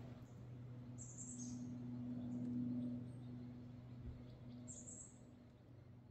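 Two short, high bird calls, one about a second in and another near five seconds, over a faint, steady low hum.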